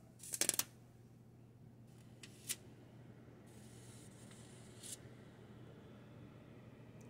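A quick cluster of sharp clicks near the start, then a single click about two and a half seconds in and a fainter one about five seconds in, over a low steady hum.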